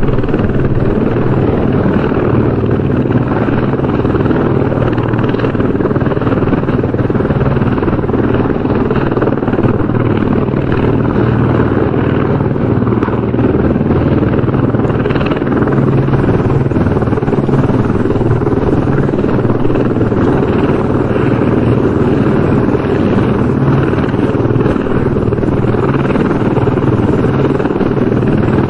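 Helicopter running steadily, its rotor and engine noise continuous and even throughout, heaviest in the low end.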